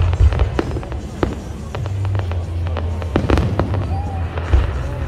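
A fireworks display going off: many sharp cracks and bangs in quick succession over a steady low booming.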